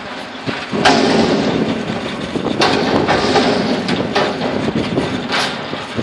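Strong wind buffeting the microphone in gusts, with sudden swells about a second in, near the middle and again near the end.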